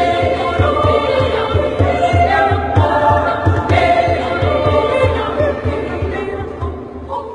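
Background music: a choir singing a Papuan folk song over a steady beat of low thumps, about four a second. The music gets somewhat quieter near the end.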